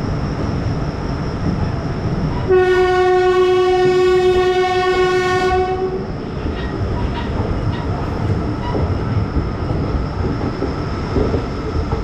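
A train horn sounds one long, steady blast of about three and a half seconds, a few seconds in, over the rumble and clatter of a passenger train rolling slowly alongside a station platform.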